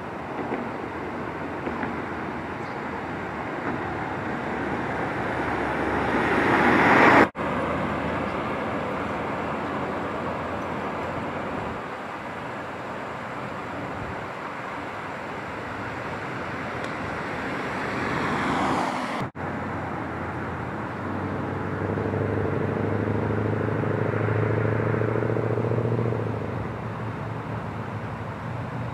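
Road traffic: vehicles approach and pass close by, their tyre and engine noise swelling twice, each time cutting off suddenly, about seven seconds in and again about nineteen seconds in. Later a vehicle engine hums with a steady low tone for a few seconds.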